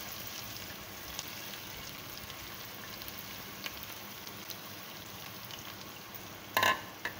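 Sliced onions frying in hot oil in a pan, a steady sizzle with scattered small crackles, at the stage of being browned to light golden. A short, louder clink sounds near the end.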